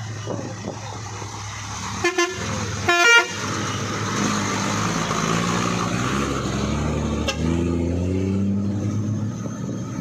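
Truck air horn sounding two short toots, then a louder, longer blast a second later. After that comes the low rumble of a truck's diesel engine under load, its pitch stepping up and down.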